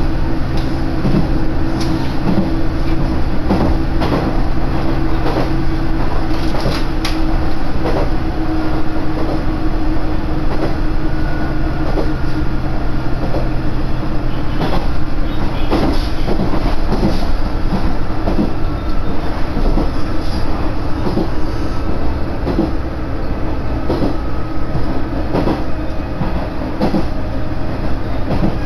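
A diesel railcar running at speed, heard from on board: a steady hum from the drive under a rushing haze of running noise, with repeated clacks of the wheels over rail joints.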